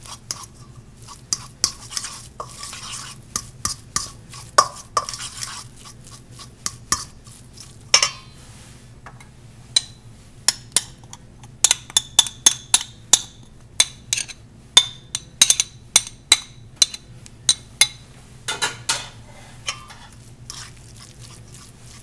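A fork mashing and stirring egg yolks and pesto in a bowl, its tines clicking and scraping against the bowl in quick, irregular taps. The taps come thickest through the middle of the stretch.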